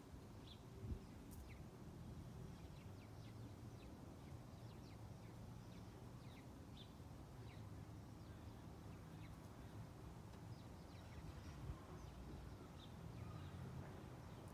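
Near silence: faint outdoor ambience with a low rumble, scattered faint high chirps, and a soft knock about a second in.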